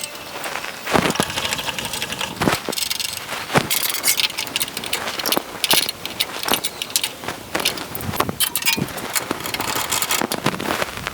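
Metal clinks, knocks and rattles from a blade change on a table saw: the stacked dado blades, chippers and arbor hardware being handled, many sharp clinks throughout.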